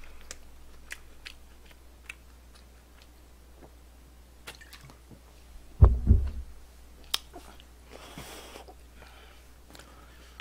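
Close-miked chewing of fried chicken: soft, scattered crunches and wet mouth clicks. One dull thump sounds about six seconds in.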